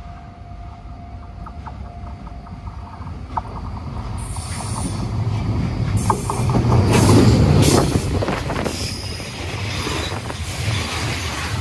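Freight train passing: a DD200 diesel-electric locomotive hauling container wagons, its engine rumble growing louder as it nears. Wheels clack over the rail joints with a brief high squeal.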